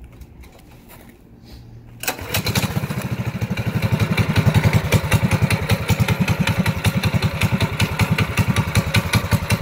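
Minibike's Predator 212cc single-cylinder four-stroke engine starting: it catches suddenly about two seconds in, then keeps running with steady, rapid firing, growing a little louder over the next couple of seconds.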